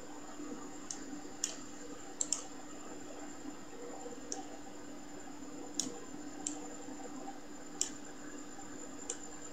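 Computer mouse clicking: about nine short, sharp single clicks at irregular intervals, two of them in quick succession a little over two seconds in, over a steady background hum.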